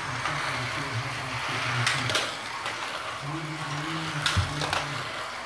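Carrera slot car running on the track, its small electric motor whining and wavering up and down in pitch, with a few sharp clicks along the way.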